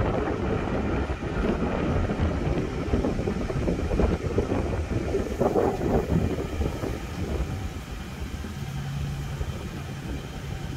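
Vehicle driving slowly, with engine and road noise rumbling, heard from inside the cab. A steady low engine hum comes up near the end.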